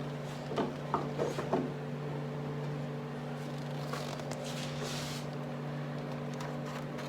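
A dust-collector hose being handled and fitted onto a homemade magnetic shroud adapter: a few light knocks in the first second and a half, then a brief scraping rustle about four seconds in. A steady low hum runs underneath.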